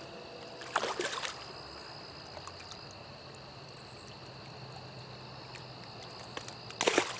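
A trout stream runs steadily under a high, even insect drone. Two short, louder noisy sounds break in, about a second in and again near the end.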